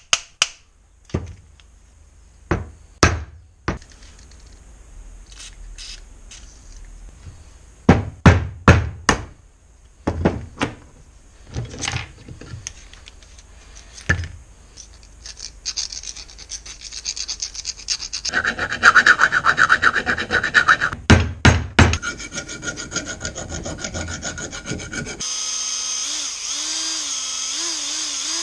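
Scattered knocks of metal tools on a workbench, then a stretch of hand scraping and rubbing. Near the end a cordless drill starts running steadily, spinning a Honda GX35 engine valve against a piece of abrasive to free up a stem that felt stiff.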